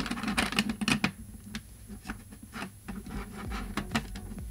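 Markers being handled and set down on a table: a run of small clicks and taps with rubbing in between, densest in the first second and sparser after.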